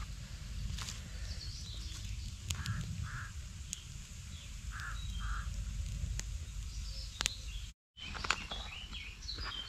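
Wood campfire crackling with scattered sharp pops under a hanging pot, over a steady low outdoor rumble. Birds call in the background, twice in quick pairs, with a few higher chirps, and the sound drops out for a moment about three-quarters of the way through.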